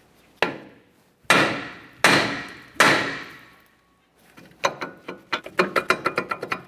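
Hammer striking a rusted rear brake disc rotor four times, each blow ringing out, to break the rotor free from the wheel hub. After that comes a quick run of rattling metal clicks as the loosened rotor is worked off by hand.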